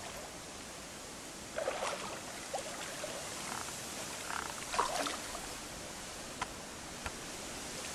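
River water lapping and rushing against a boat, with a few short splashes, the loudest about five seconds in.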